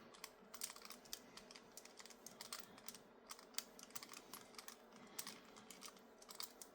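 Faint, irregular small clicks and ticks of a small screwdriver turning screws into tight-fitting holes in a 3D-printed plastic RC car chassis.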